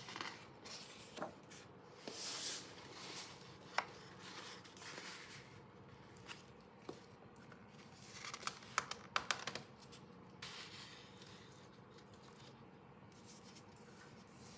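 Hands handling the packaging and contents of a vinyl LP album: scattered rustles and light knocks, with a quick cluster of small clicks about nine seconds in.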